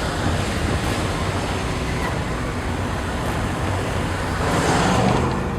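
Steady rush of road and wind noise from a moving car, swelling louder for a moment about four and a half seconds in.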